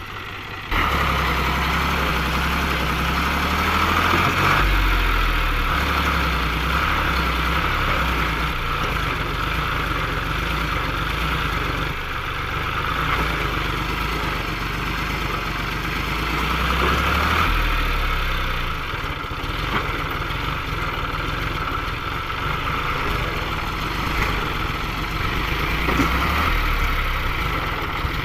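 John Deere 5103 tractor's three-cylinder diesel engine running steadily, with a low even throb; the sound jumps louder abruptly about a second in.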